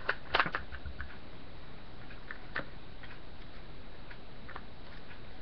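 Small clicks and taps of Tippmann A5 paintball marker parts being fitted by hand as the spring goes back into the bolt: a quick cluster of clicks at the start, then a few single ticks.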